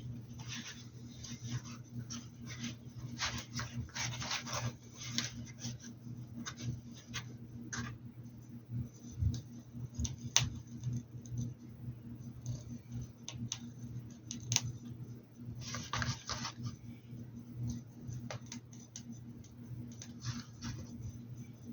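Paintbrush strokes scratching across the fabric of a hat, in short runs of quick strokes with a few sharp taps between them, over a steady low hum.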